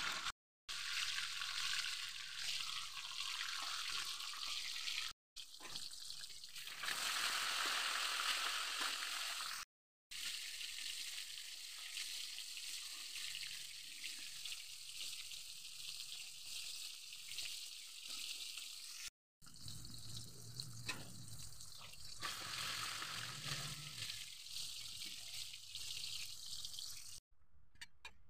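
Whole tilapia sizzling as it deep-fries in a wok of hot oil, a steady high hiss. It cuts out abruptly and briefly four times.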